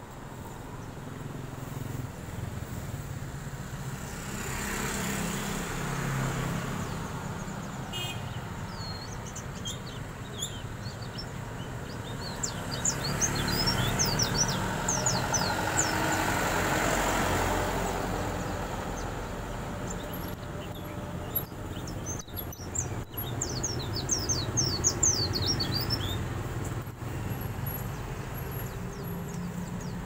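Small caged songbirds twittering in quick bursts of high chirps, over road traffic whose noise swells several times as vehicles pass.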